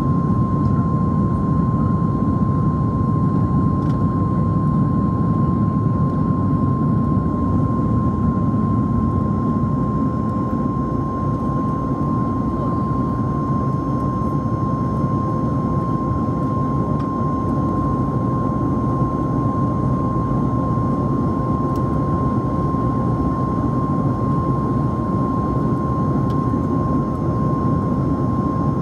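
Cabin noise of a Boeing 737 MAX 8 in flight, heard at a window seat beside the wing: a steady roar from its CFM LEAP-1B engines and the airflow, with a constant high tone riding over it.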